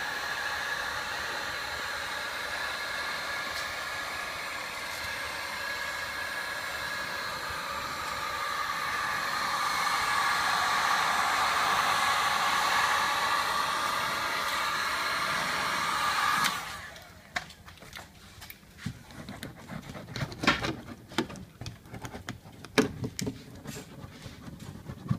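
Electric heat gun blowing steadily as it warms the film patch over a car-door service hole, getting louder towards the middle, then switched off abruptly about two-thirds of the way in. After that come scattered light clicks and taps as the warmed patch is pressed down with a hand roller.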